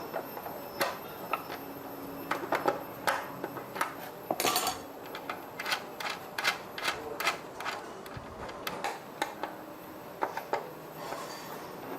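Tools and metal parts of a rice cooker being handled during repair work: irregular clicks, taps and clatters, with a brief scraping rasp about four and a half seconds in.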